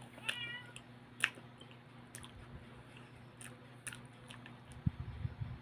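A cat meows once, briefly, near the start. Then come scattered wet mouth clicks and chewing of soft fruit, with low thuds of chewing near the end.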